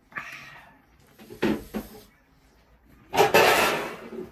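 Close-miked eating sounds of a person chewing octopus tteokbokki: wet mouth noises at the start, two sharper sucking or slurping sounds about a second and a half in, then a long, loud breathy blow out through the open mouth for about a second near the end.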